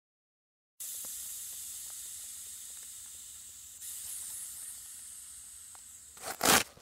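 Air hissing steadily out of an electronic blood pressure monitor's inflated arm cuff as it deflates, slowly fading, then a short loud rush of air about six seconds in as the cuff releases.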